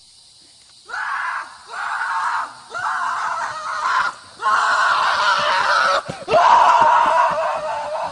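A series of about five loud screams, each a second or so long, with short breaks between them.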